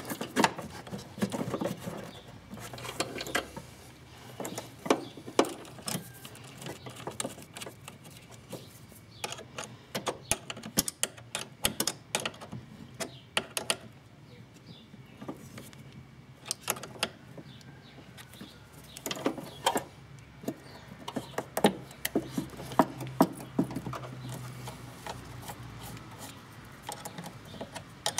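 Hand tools working battery terminal clamps and the hold-down bolt: runs of rapid ratchet clicking and metal clinks on the bolts, with pauses between.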